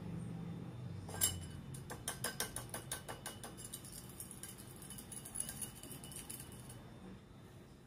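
Kitchen items being handled: a sharp click about a second in, then a quick run of light clicks and clinks over the next few seconds, thinning out toward the end.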